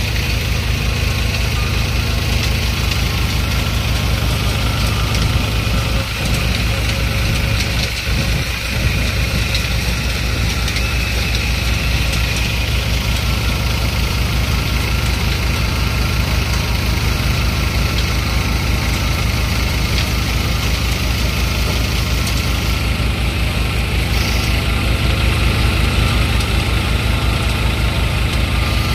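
Threshing machine running steadily while moong plants are fed into it: a dense, even machine noise over the fast low beat of the engine driving it.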